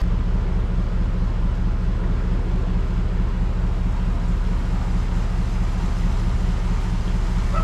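Four-wheel drive on the move: a steady, loud, low engine and road drone with no change in pace.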